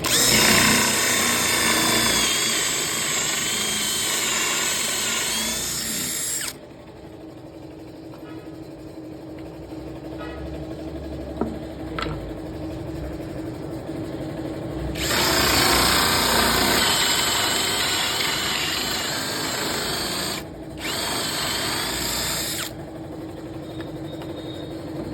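Ingco cordless drill with a 35 mm bit boring concealed-hinge cup holes: three spells of drilling, with a wavering motor whine as the bit cuts. The first and second are long, and the third short one follows right after the second. Quieter pauses fall between the first two spells and after the last.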